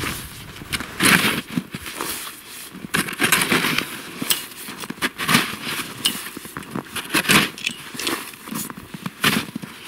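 Plastic snow shovel (a NIX 2 with an extra lever handle) digging into deep snow and tossing it, a crunching stroke roughly every second.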